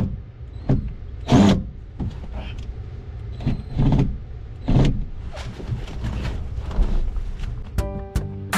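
A series of short scrapes and knocks, about one a second, from hands and tools working at an old cabin light fixture in a tight space, over a low rumble. Guitar music comes in near the end.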